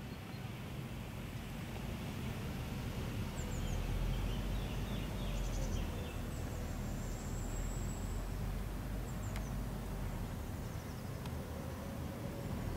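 Outdoor ambience: a steady low rumble with a few faint, short, high chirps from small birds.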